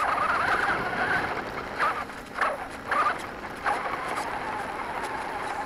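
RC monster truck's motor and gears whining as it drives over rough dirt and grass, the pitch wavering with the throttle. Four short loud bursts come in the middle as it bumps over the ground, and the whine then settles into a steadier tone.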